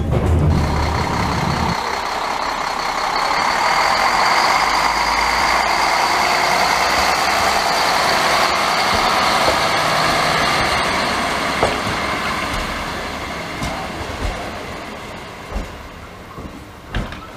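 ŽSSK class 813 diesel railcar running past close by at a station, its engine and running-gear noise carrying a steady high whine. The noise is loudest in the middle and fades as the railcar draws away. The first two seconds are the low rumble inside a moving railcar before it changes.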